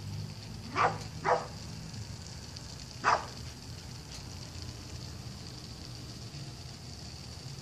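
A dog barking three times: two quick barks about half a second apart, then one more bark about two seconds later.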